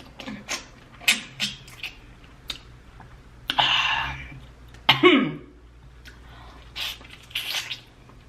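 Close-up eating sounds from sucking and peeling sauced prawns: wet lip smacks and clicks, and a long slurp about three and a half seconds in. The loudest sound is a short cough with falling pitch about five seconds in, as the 2x-spicy sauce hits.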